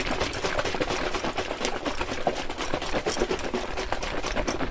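A plastic bottle of apple juice being shaken hard by hand, the juice sloshing in a fast, steady rhythm.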